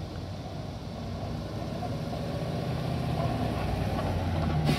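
2010 Ford E-350 SuperDuty box truck driving slowly past at low speed, its engine growing louder as it comes near, with the engine note rising in pitch near the end.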